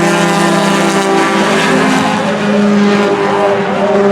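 Several four-cylinder race cars running together at high revs, their engine notes overlapping and shifting slightly in pitch.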